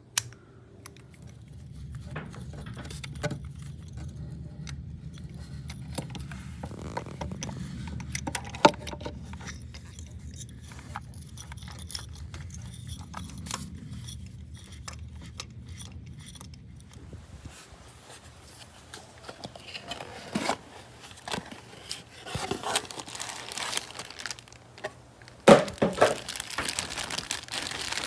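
Metal hand tools and engine parts clinking, knocking and scraping during work on the engine, with a low steady hum under the first half. The loudest knocks come in the last few seconds.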